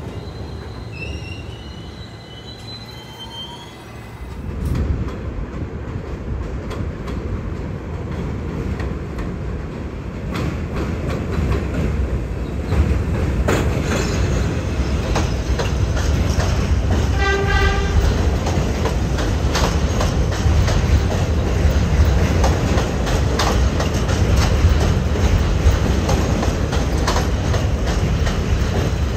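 New York City subway train running past on the tracks: a low rumble that swells from about five seconds in and stays loud, with wheels clattering over rail joints. A short horn blast sounds a little past halfway.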